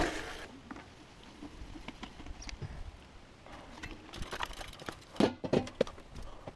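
Light clicks and knocks of a mountain bike being lifted and handled, with a cluster of sharper knocks about five seconds in.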